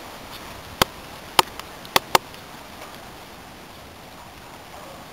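Four sharp clicks or knocks in the first half over steady outdoor background noise, the last two close together.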